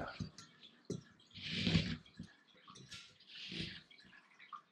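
A propane backpacking stove burner being lit: a few faint igniter clicks and two short rushes of hissing gas, about two seconds apart.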